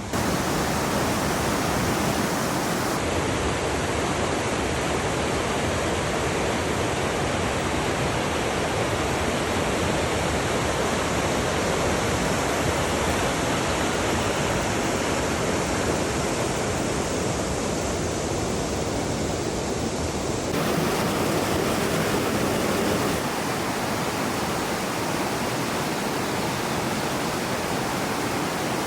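A fast-flowing river rushing loudly in a steady roar of water, its character shifting abruptly a few times.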